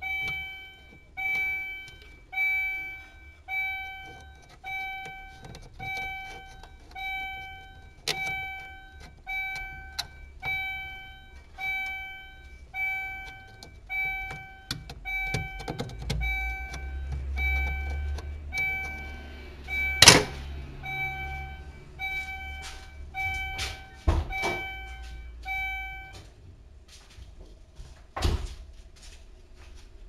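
Add-on car reversing warning buzzer beeping in a steady rhythm, a little over one beep a second, sounding because reverse gear is engaged; the beeping stops a few seconds before the end as reverse is taken out. Clicks and knocks of handling, with one loud sharp click about two-thirds of the way through.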